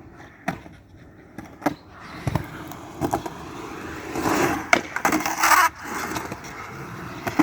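Skateboard rolling on concrete, with a run of sharp clacks as the board hits the ground; the rolling grows louder for a couple of seconds around the middle.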